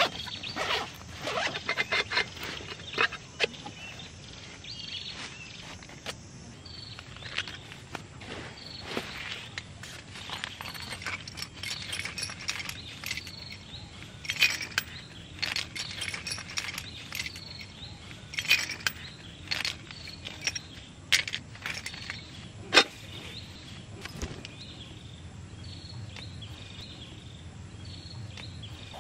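Small tools and gear being handled and set down on a foil-faced sleeping mat: irregular clinks, clicks and rustles of metal tools, leather and cloth. The sharpest click comes about three quarters of the way through.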